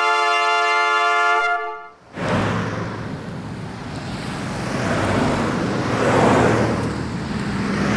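A held brass chord ends the theme music and stops about two seconds in. Road traffic follows: vehicle engines and tyre noise swell as something passes, loudest near the end.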